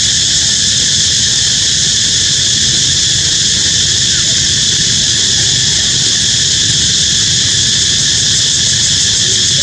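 Steady, loud, high-pitched insect chorus that holds at one level without a break, over a low rumble.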